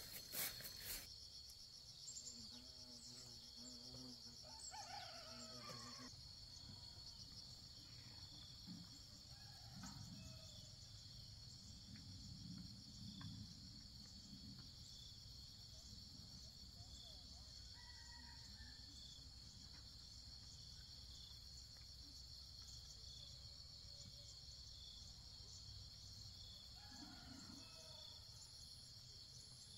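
Steady, high-pitched shrilling of insects in the surrounding vegetation, with a faint regular pulse about once a second beneath it.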